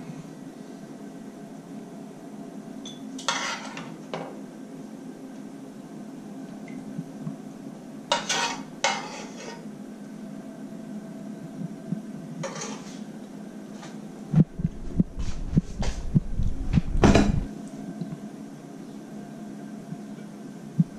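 Fork and chopsticks scraping and clinking against a frying pan and a ceramic plate as spaghetti is lifted out and twirled onto the plate. About two-thirds of the way through comes a run of louder knocks and thuds. A steady low hum runs underneath.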